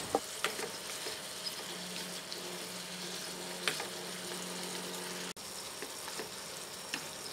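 Grey oyster mushrooms and pork sizzling in a frying pan as they are stir-fried with chopsticks, with a few light clicks of the chopsticks against the pan and a steady low hum underneath.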